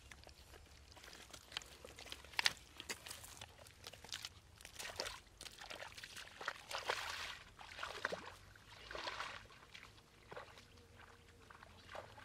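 Water sloshing and splashing in irregular surges, with some sharper splashes, as it is stirred up in shallow, muddy water.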